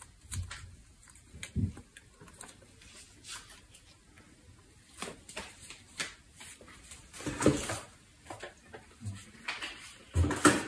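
Scattered light clicks, rustles and soft thumps of hands working over a pot and of the phone being handled as it is moved, with a louder brief sound about seven and a half seconds in.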